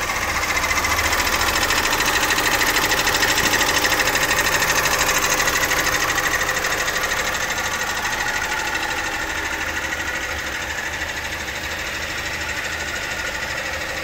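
Opel Insignia A diesel engine running with a fast, steady mechanical clatter, which the mechanic takes as the sign of a slack timing chain close to snapping and of the engine running a little rough.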